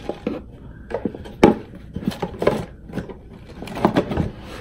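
Hands rummaging inside a cardboard box of art supplies: a series of short rustles and light knocks as packaging and items are shifted about, the sharpest knock about a second and a half in.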